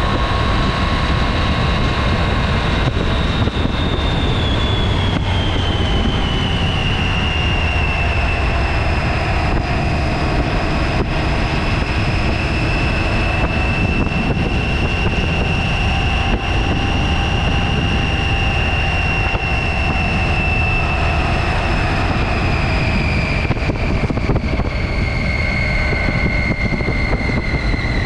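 2017 Triumph Tiger XCx three-cylinder adventure motorcycle riding at steady road speed: continuous engine and wind noise, with a high whine that drifts slowly lower in pitch.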